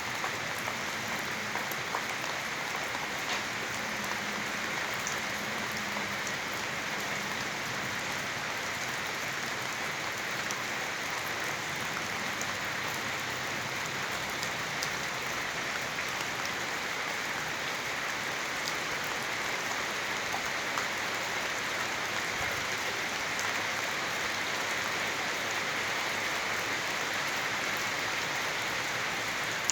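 Steady rain falling on a surface: an even hiss with many scattered individual drop ticks.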